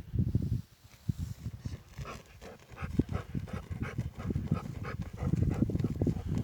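A dog panting in quick, rhythmic breaths, which drop off briefly about a second in and then pick up again.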